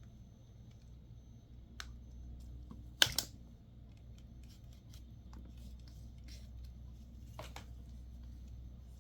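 Small objects being handled on a work surface in a small room: scattered clicks and taps, one sharp click about three seconds in, over a low steady hum.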